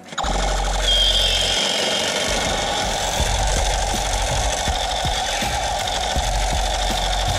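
A small motor-driven mechanism starts abruptly and runs continuously with a loud rapid rattle of clicks over a low hum.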